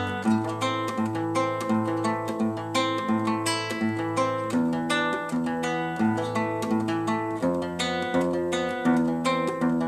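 Acoustic guitar playing an instrumental piece: a steady repeating pattern of plucked notes over low bass notes that change every few seconds.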